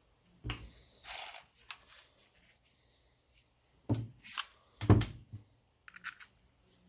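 Bolts and camshaft adjuster parts being handled on a bench: a few separate knocks and clinks, with a short rustling scrape about a second in.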